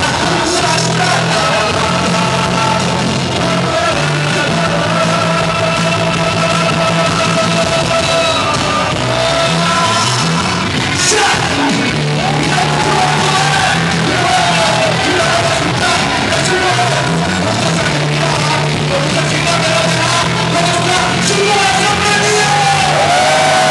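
A man singing live into a handheld microphone over a loud backing track, with long held notes over a steady bass line.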